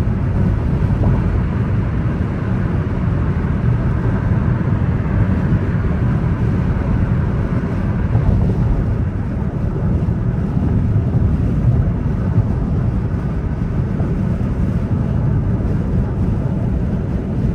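Steady road and engine noise of a car driving, a dense low noise with no breaks.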